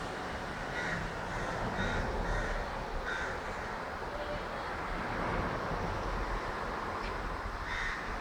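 Five or six short, harsh animal calls, spaced irregularly over several seconds, over a steady background rumble.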